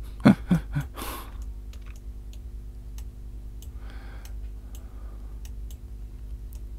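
Computer mouse and keyboard clicks: a few sharp knocks in the first second, then sparse faint clicks, over a steady low electrical hum.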